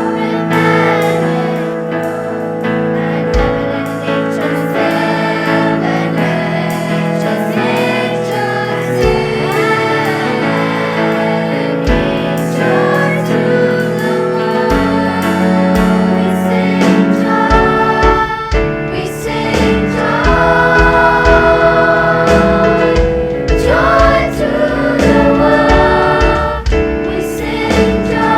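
A school choir singing in parts over accompaniment. A low beat comes in now and then at first and settles into a steady rhythm from about halfway.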